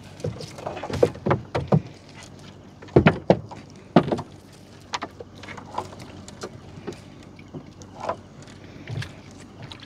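Irregular knocks and clatter in a small boat as a gill net is hauled in by hand. The knocks come thick in the first four seconds, loudest about three and four seconds in, then thin out.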